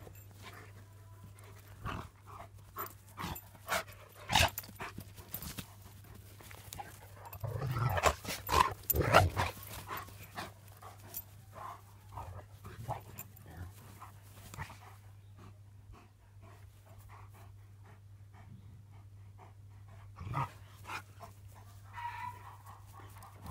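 Large livestock guardian dogs playing on grass: panting, with scattered knocks and scuffles and a louder flurry of play noise around eight to nine seconds in. A steady low hum runs underneath.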